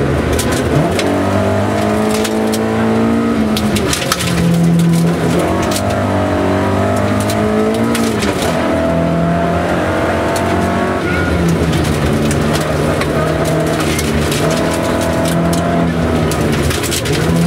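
Rally car's engine, heard from inside the cabin, running hard at high revs. Its pitch climbs and drops several times as the driver shifts gears and lifts, while gravel clatters against the underside of the car.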